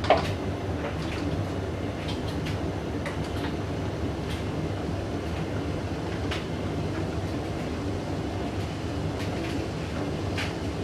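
Hoover DYN9144D3X washing machine drum turning slowly with a steady rumble and irregular clicks and knocks, a sharp knock right at the start. It is trying to balance an out-of-balance load of blanket bedding and not getting up to spin.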